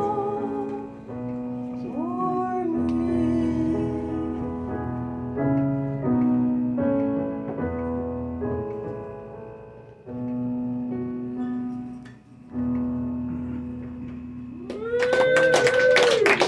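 Digital stage piano playing the slow closing chords of a song, with a short sung phrase about two seconds in. About fifteen seconds in, audience applause and a cheer break out as the song ends.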